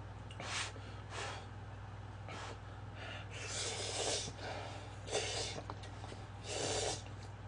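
A person slurping cup ramen noodles: about six short hissing slurps, the longest a little past halfway, over a low steady hum.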